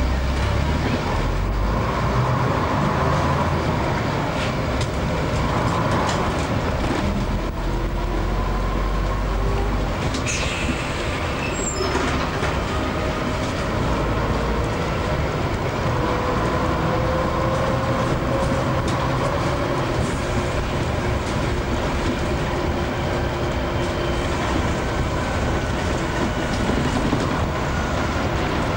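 Double-decker bus on the move, heard from inside: a steady diesel engine drone with light rattles, and a faint whine that glides up and down in pitch as the bus changes speed.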